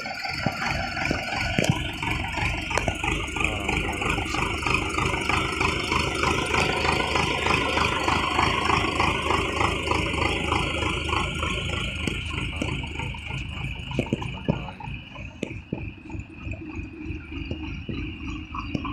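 Belarus farm tractor's diesel engine running with a steady, rattly low beat. It is a little quieter in the last few seconds, with a few knocks.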